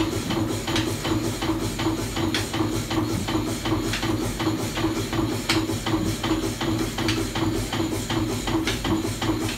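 Horizontal steam engine running, with a steady rhythm of short mechanical knocks, several a second, over a pulsing hum.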